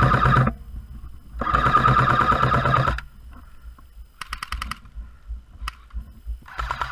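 A&K PKM airsoft electric light machine gun firing full-auto bursts of about a second and a half, with short pauses between. The gearbox cycles in a fast, even rattle.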